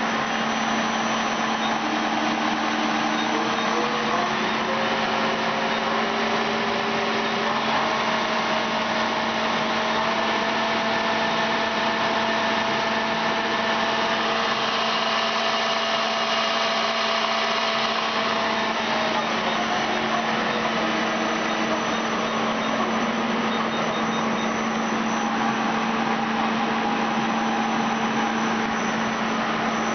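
Ajax CNC lathe running: a steady machine hum with a motor whine that rises in steps over the first ten seconds or so, holds, then steps back down about twenty seconds in.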